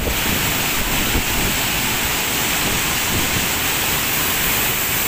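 Waterfall of two streams plunging into a rock pool: a steady rush of falling water.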